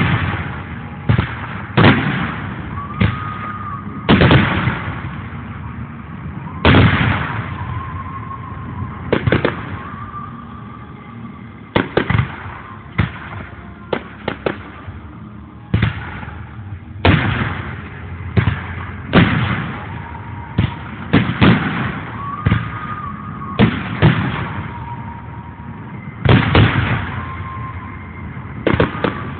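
Fireworks display: aerial shells bursting in irregular succession, a sharp bang every second or two, sometimes several close together, each trailing off in a rolling echo.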